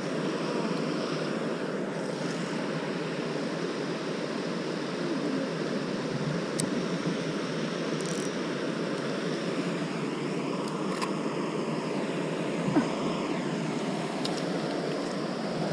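Steady rushing of falling water, with a few faint clicks.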